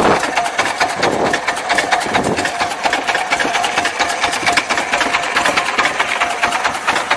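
Fishing boat's engine running, a fast, even knocking with a steady hum.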